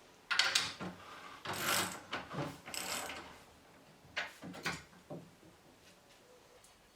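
A run of short mechanical scrapes and clicks, about five of them over the first five seconds, as metal parts of an old bevel gauge are handled; quiet after that.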